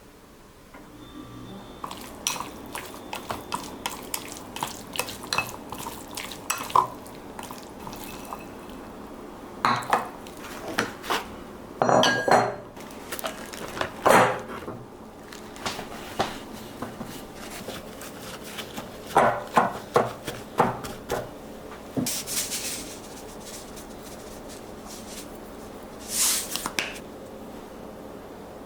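Kitchenware clattering: utensils and dishes knocking and clinking against each other in irregular runs, with a few longer scraping or rustling noises.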